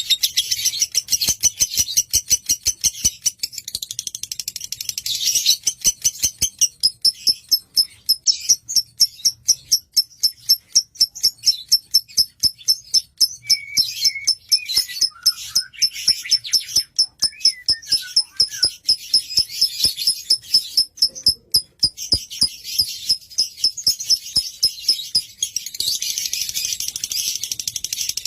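Lovebird singing a long run of rapid, shrill, high chirps, a few a second, strongest through the middle stretch.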